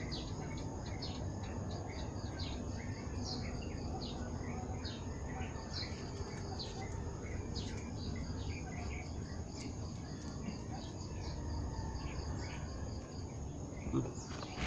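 Small birds chirping: many short, high chirps in an irregular stream, over a steady low background noise.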